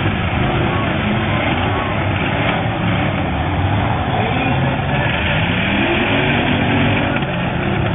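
Several demolition derby cars' engines running and revving at once, their pitches rising and falling over one another in a dense, continuous din.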